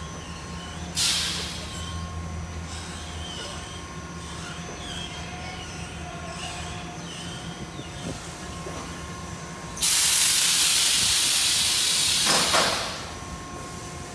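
Car wash tunnel machinery running with a steady mechanical hum. A short hiss comes about a second in, and a loud hiss lasts about three seconds near the end.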